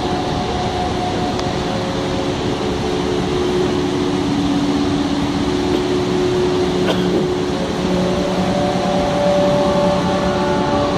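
Flood-swollen Alaknanda river in spate, pouring over a submerged bridge with a steady, loud rushing of water. Several steady humming tones sound over it, stronger from about eight seconds in.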